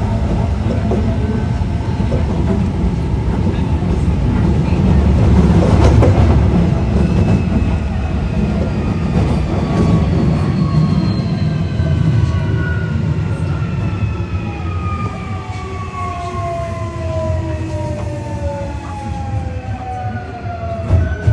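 Osaka Metro 1300-series subway car running on the track with a heavy rumble and rail clatter. From about a third of the way in, the Toyo IGBT VVVF inverter and traction motors give a whine of several tones that fall steadily in pitch as the train slows.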